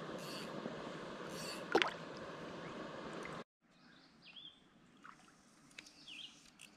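Creek water sloshing and trickling around a wader's hands, with one sharp splash about two seconds in as a small brook trout is let drop back into the water. About halfway through, the water sound cuts out to a quieter creekside with a few faint bird chirps.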